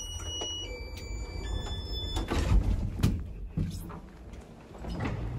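Small elevator's electronic chime: three held tones, each a step lower than the last. Then the elevator's sliding doors open, with a couple of sharp clunks over a low rumble.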